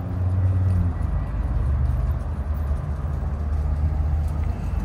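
Steady low rumble of vehicle engines and traffic, with a faint engine hum over it.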